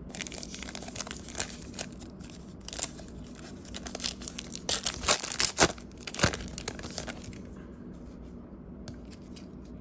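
A sealed Diamond Kings baseball card pack being torn open by hand: a run of crinkling and tearing of the wrapper, busiest about four to seven seconds in, then dying down.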